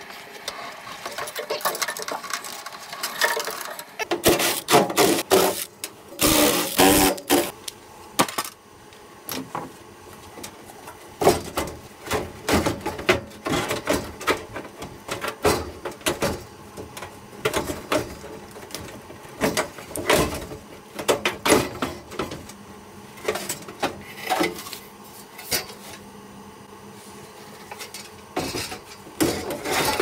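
A gas furnace being taken apart by hand: sheet-metal panels and parts clattering, scraping and knocking, with wiring being pulled. The knocks come irregularly, densest and loudest about four to eight seconds in.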